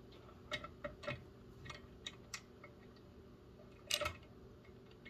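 Scattered light metallic clicks and taps as a bolt and steel clamp are fitted against a clothes wringer's metal frame, with a slightly louder clatter about four seconds in.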